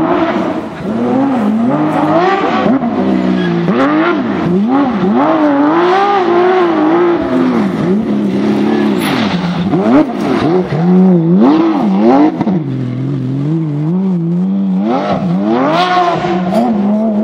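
Porsche 911 GT3 rally car's flat-six engine revving hard, its pitch rising and falling again and again.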